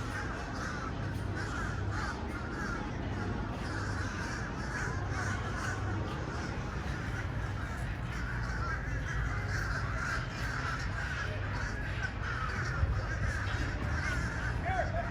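Many birds calling over and over, a dense chorus of short calls, over a steady low hum.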